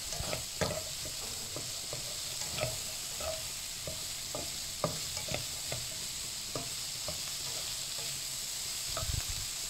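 Chicken liver, gizzards, snow peas and bell peppers sizzling in hot oil in a stone-coated non-stick wok while a spatula stirs them, with irregular scrapes and taps of the spatula against the pan over a steady frying hiss.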